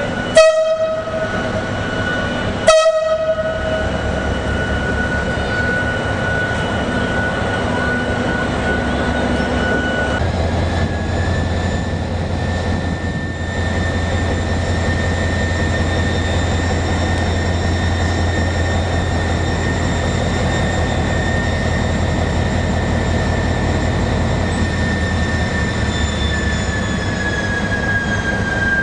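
Railway locomotive giving two short horn blasts about two seconds apart, then running steadily as it departs. About ten seconds in its engine note deepens and grows, and a high whine slides slowly downward near the end.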